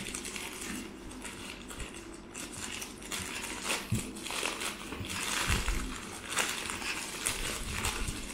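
Plastic Amazon shipping mailer crinkling and crackling in irregular bursts as hands pull and peel it open, busiest in the second half.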